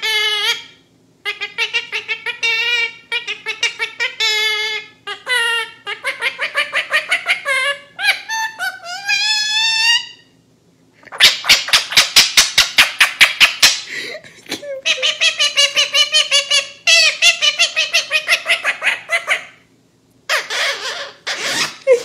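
A woman and her yellow pet parakeet laughing together. The first part has wavering, sobbing pitch; from about eleven seconds in it turns to fast, rhythmic ha-ha laughing.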